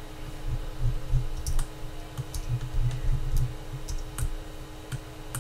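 Computer mouse and keyboard clicks, about ten sharp clicks at irregular spacing, over a steady low hum and a low rumble.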